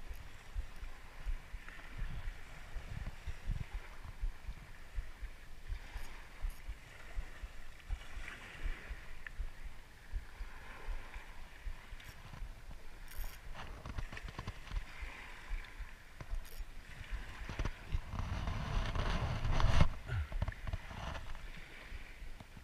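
Shallow seawater sloshing and lapping around a wading angler, with a louder rush of water near the end.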